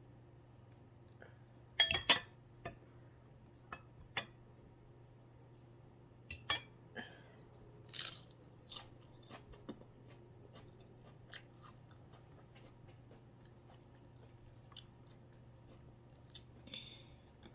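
Close-up eating sounds: a person chewing and biting crunchy food in separate sharp crunches and clicks, the loudest about two seconds in and again about six and a half seconds in.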